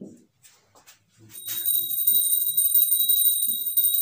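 A few soft marker strokes on a whiteboard, then about a second in a mobile phone starts ringing: a loud, steady, high-pitched electronic tone that keeps on.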